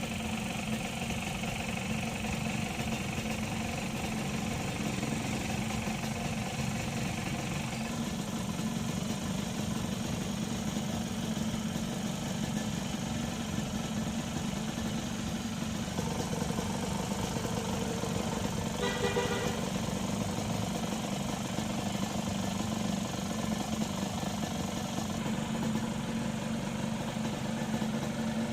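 Suzuki X4 motorcycle engine idling steadily.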